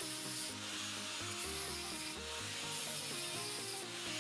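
Angle grinder grinding down a weld on a steel bracket, a steady grinding noise, under electronic background music with a stepping melody and bass.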